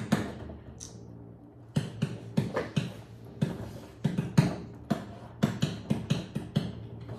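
Dry-erase marker writing on a whiteboard: a run of short scratchy strokes, about three a second, as letters are drawn. A faint steady low hum sits underneath.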